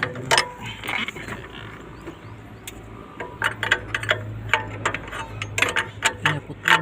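Irregular metallic clicks and clinks of hand tools working on the engine, coming thicker in the second half, over a steady low hum.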